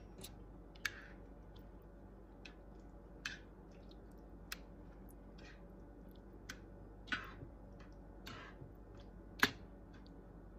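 Spoon stirring a pot of thick spaghetti sauce: scattered faint clicks and a few short scrapes against the pot, with the sharpest click near the end.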